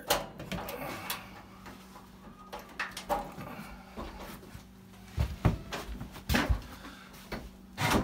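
Handling noise at an open dryer's heater housing: irregular clicks, knocks and light metal rattles of wire terminals and sheet metal, over a faint steady hum. The loudest thumps come about five and six and a half seconds in.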